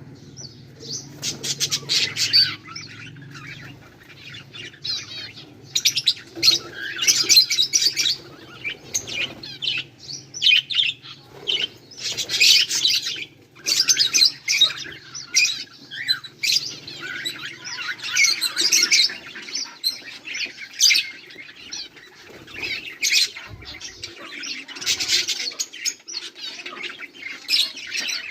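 Budgerigars chirping and chattering in bouts, with squawks and some wing flapping.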